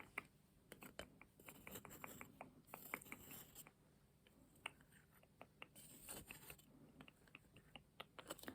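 Faint, close-miked clicks and scratching from stationery being handled, with a few short scratchy strokes.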